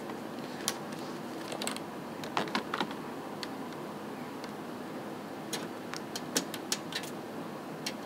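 Scattered light clicks and taps of cable plugs being handled and pushed into a PC's rear USB ports, over a steady low room hum.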